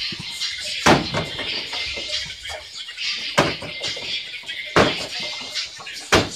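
Kicks and punches landing on a freestanding torso-shaped punching dummy: four sharp smacks, one about a second in, one near the middle and two toward the end, with faint music underneath.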